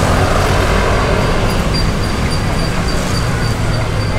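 Cotton candy vending machine running while it spins a serving: a loud, steady mechanical whir and low hum, with a faint high pulsing tone from about a second and a half in.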